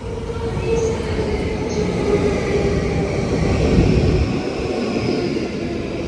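Sobu Rapid Line electric commuter train running alongside the platform. Its wheels rumble on the rails, with steady high whining tones over the rumble, growing louder about two thirds of the way in.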